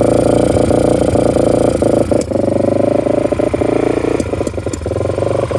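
1998 Yamaha XT350's single-cylinder four-stroke engine running at a fast idle of about 3,000 RPM, held there by a sticking throttle. It carries a strange noise from the intake that the owner can't identify, and the running dips briefly about two seconds in and again near the end.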